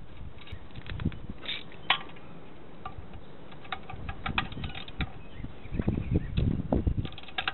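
Socket ratchet clicking and metal tools clinking as a nut on a VW 1600 air-cooled engine case is worked, with a cluster of quick ticks around the middle and heavier dull knocks near the end.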